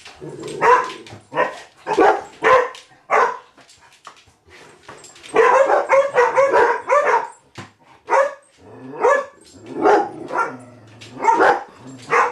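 Hungarian Vizsla puppy barking repeatedly at a cat, short barks about one a second. After a brief pause, a longer unbroken stretch of barking follows in the middle, then more short barks.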